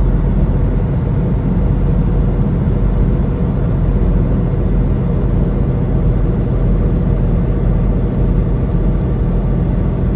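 Semi truck's diesel engine and road noise heard inside the cab while driving, a steady low drone.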